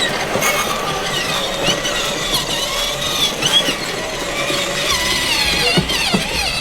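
Battery-powered ride-on toy cars running, under a high-pitched wavering squeal.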